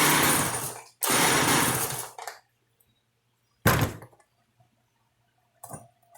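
McCulloch 50cc two-stroke chainsaw being pull-started: three pulls on the recoil starter cord turning the engine over, the last one shorter, without the engine catching.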